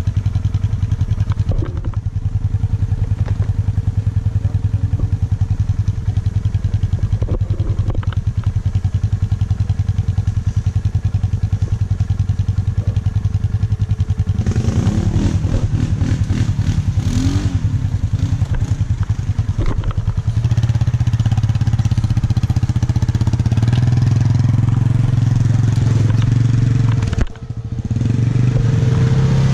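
Quad (ATV) engine running with a steady pulse. Around the middle comes a stretch of revving and clatter, after which the engine runs louder and steadier, with a brief drop in level shortly before the end.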